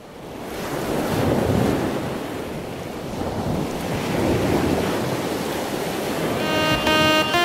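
Ocean surf sound effect fading in from silence and swelling twice, like waves washing in. Near the end a synthesizer melody of short stepped notes starts over it.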